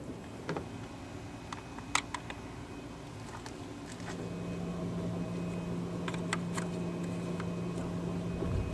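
Scattered light clicks and taps, then a steady mechanical hum that starts about four seconds in and carries on.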